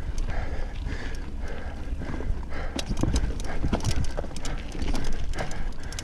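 Mountain bike rattling and knocking over a rough trail at race pace, with wind rumbling on the GoPro's microphone and the rider's hard breathing repeating about twice a second.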